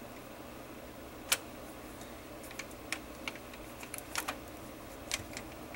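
Scattered sharp metal clicks and taps from hands fitting a rod into place on an automatic transmission valve body. The loudest click comes about a second in and a run of smaller ones follows, over a faint steady hum.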